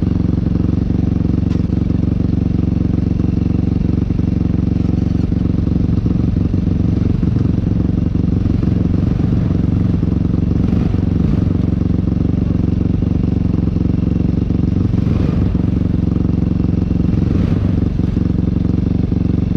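ATV engine idling steadily close to the microphone.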